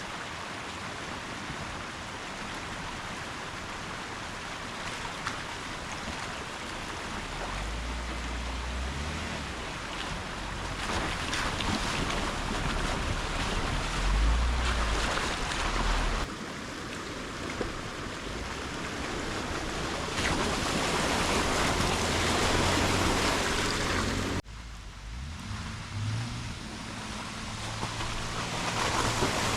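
Jeep Wrangler JK engine pulling at low speed through a washout, its rumble rising and easing, with the tyres churning and splashing through slush and water. A steady rush of noise runs throughout, and the sound changes abruptly twice.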